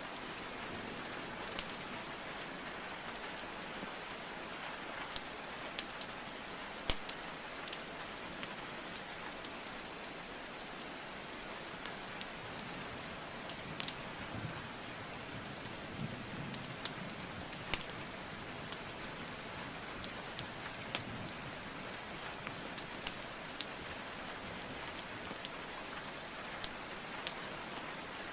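Steady rainfall with scattered sharp crackles and pops from burning wood logs in a fireplace, a few every second or two.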